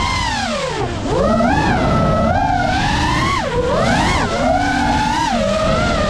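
FPV drone's brushless motors whining, the pitch swooping down and up with the throttle: a steep drop about a second in, then several rises and falls. A low rush of wind and prop noise runs underneath.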